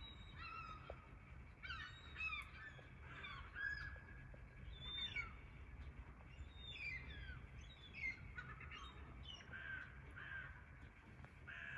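A flock of gulls calling over one another in a squabble over food: a run of short, repeated calls, several falling in pitch, over a low steady rumble.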